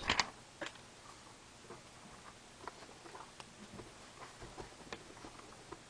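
Light scattered clicks and taps of trading cards and hard plastic card holders being handled and moved on a table, with a sharper click about a second in.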